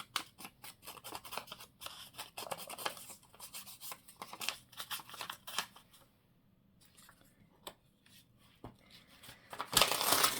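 Scissors cutting paper: a run of short, crisp snips. After a pause, a louder rustle of paper comes near the end.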